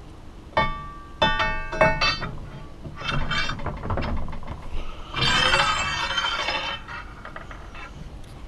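Steel boring bar of a hot tapping machine being slid into its steel housing: several ringing metal-on-metal clinks in the first two seconds, then scraping, and about five seconds in a longer metallic scraping slide lasting about a second and a half.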